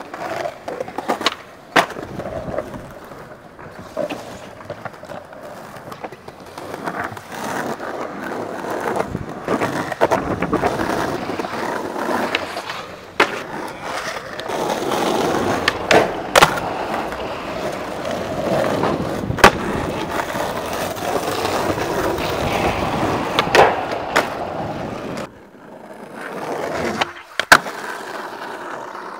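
Skateboard wheels rolling over concrete and stone paving, the rumble swelling and fading as the board speeds up and slows. Sharp cracks of the board striking the ground cut through it about half a dozen times.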